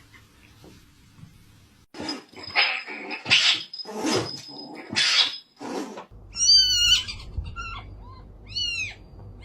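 Domestic cat meowing several times in short arching calls during the second half, preceded by a run of short noisy bursts.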